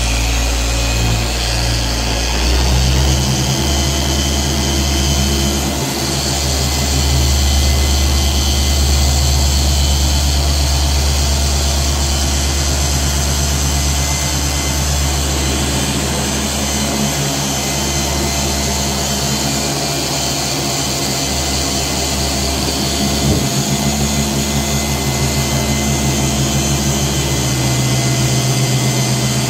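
Dual-action car polisher running steadily with a foam pad working over car paint, a RUPES machine for most of it. The motor's low hum shifts to a different pitch about three seconds in.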